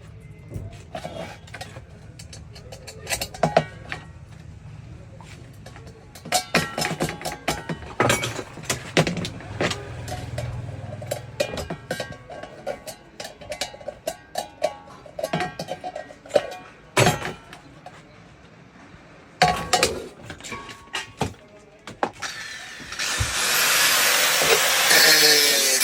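Hand tools clicking, knocking and clinking on metal in irregular bursts, then a loud steady rushing noise starting about 23 seconds in.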